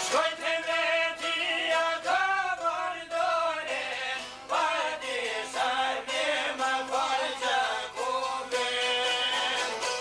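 Albanian folk music: a man sings in a wavering, ornamented voice over a bowed violin and a plucked long-necked lute.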